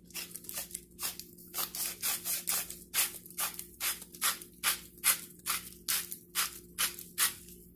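Hand-twisted salt grinder cracking salt: a steady run of gritty grinding strokes, about three to four a second, that stops just before the end.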